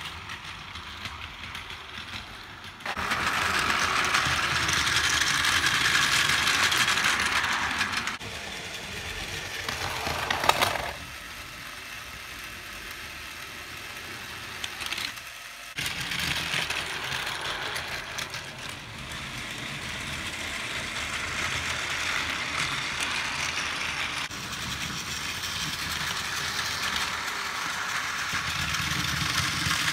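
Battery-powered Plarail EF65 toy locomotive running on blue plastic track. Its small motor and gears whirr and its wheels rattle along the track, louder at some moments than at others.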